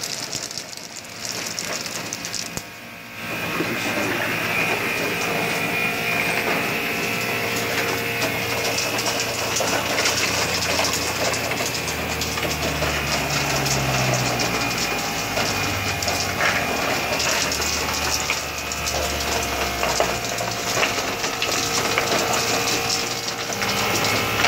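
Hoshizaki commercial ice machine running: a steady mechanical whir with scattered small clicks and rattles, and a low hum through the middle stretch.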